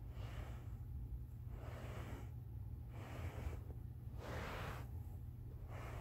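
Heavy, rhythmic breathing close to the microphone, one breath about every second and a half, the loudest about two-thirds of the way through, over a steady low hum.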